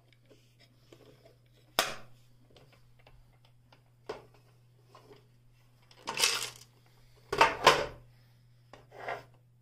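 Hard plastic parts of a Pfaff Creative 1469 sewing machine being handled: a sharp click about two seconds in, then scattered knocks and a clatter, with two louder thuds in quick succession near the end as the plastic extension table is moved and set down on the tabletop.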